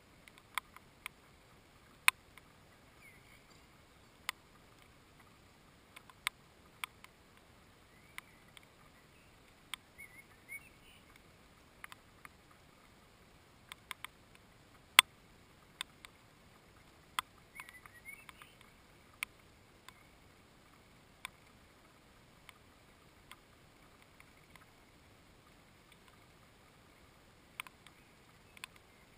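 Irregular sharp taps and ticks close by on the wooden feeder box, one every second or two at uneven spacing, with a few faint, short bird chirps now and then.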